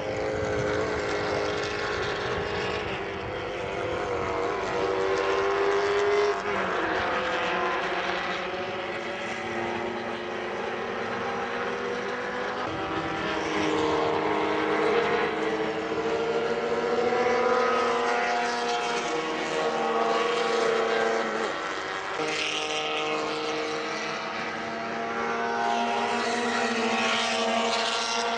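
Several small 850 Promocional class race cars running at high revs on track, their engine notes overlapping and rising and falling in pitch as they go round.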